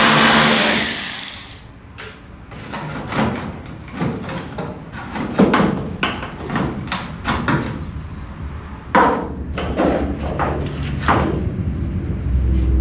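Background music fades out over the first second or two. It gives way to a string of irregular knocks and clanks from hands-on work on the car's body.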